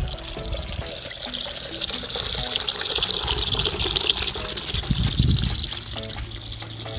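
Tap water pouring in a steady stream into a metal cooking pot, filling it, growing a little louder after the first couple of seconds.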